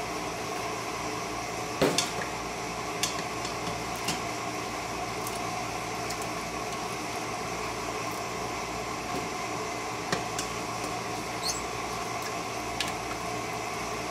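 Slotted plastic skimmer scooping chicken cubes out of a stainless steel Instant Pot inner pot and into a plastic container: scattered light clicks and taps, about eight in all, the loudest about two seconds in. Under them runs a steady background hum.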